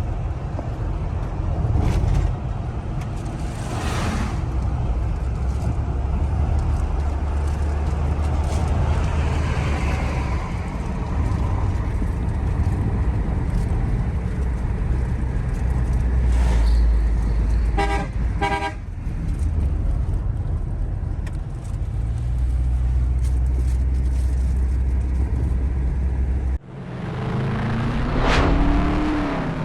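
Steady road and engine noise of a car being driven, with two short horn toots about 18 seconds in. Near the end the road noise cuts off abruptly and a different sound with sliding tones begins.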